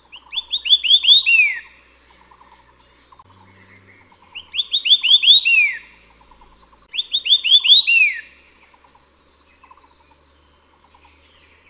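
White-eared sibia singing three phrases a few seconds apart, each a quick run of five or six rising whistled notes ending in one longer falling note. A faint rapid chirring runs underneath.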